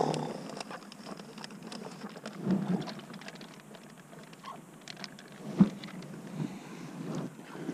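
Scattered small clicks, taps and rustling as ice-fishing tackle is handled while a tip-down is reset over the hole, with one sharper knock a little past halfway.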